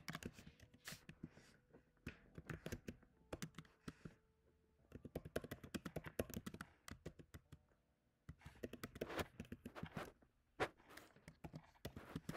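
Typing on a computer keyboard: quick runs of keystrokes broken by two short pauses, one a little before the midpoint and one about two-thirds of the way through.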